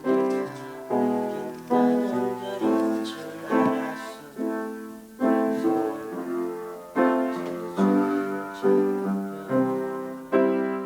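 Piano played in slow chords, struck a little under once a second, each left to ring and fade.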